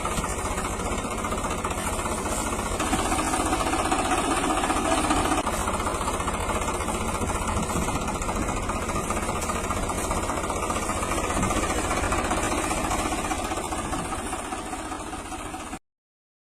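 Toy JCB 3DX backhoe giving a steady engine-like running sound with a fast knock, which cuts off suddenly near the end.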